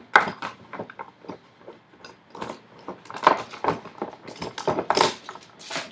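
Half-inch steel chain links clinking and rattling as the chain is handled: a string of irregular metallic clinks, with a sharper one just after the start.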